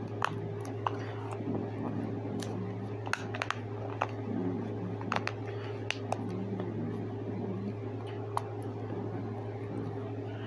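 Small scattered clicks and light handling noise from the packaging being closed up by hand, over a steady low hum.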